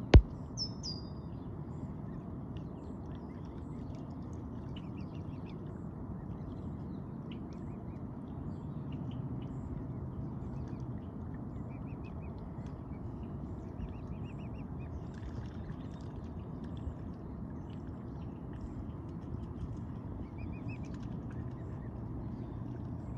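Mute swan cygnets peeping softly as they feed, many short high chirps scattered over a steady low background hum. A sharp click right at the start.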